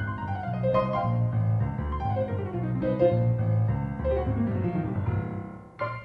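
Solo piano playing: a melody over a repeating left-hand bass, with falling runs about two seconds in and again about four and a half seconds in. It eases off, then a new, firmly struck chord comes just before the end.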